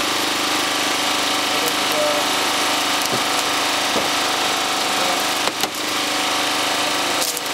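A small engine running steadily, with sharp cracks and snaps of a car windscreen being cut and broken by a hand tool, the loudest about 5½ and 7 seconds in.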